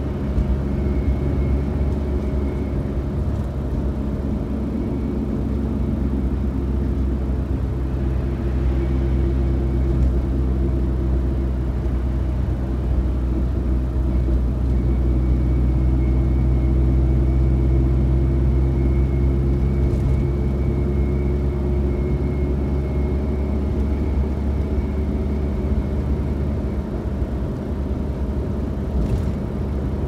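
Steady road noise and engine hum heard from inside a car's cabin while it drives along an expressway, with a low rumble throughout and a faint high steady whine at times.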